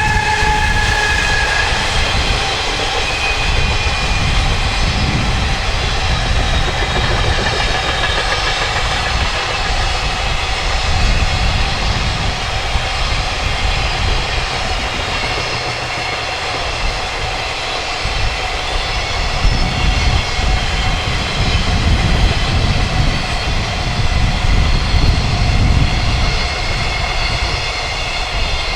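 Long freight train hauled by a JR Freight EF210 electric locomotive passing at speed, a long steady rumble of wagon wheels on the rails with a falling whine in the first couple of seconds as the locomotive goes by.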